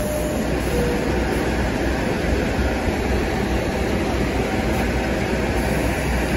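New York City Subway R62A train heard up close, a steady low rumble and hum with no distinct wheel clatter.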